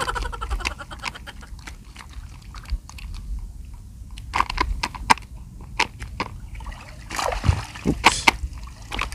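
Shallow seawater sloshing and splashing irregularly, as from wading and handling fish in the water, with sharper splashes from about four seconds in over a low steady rumble.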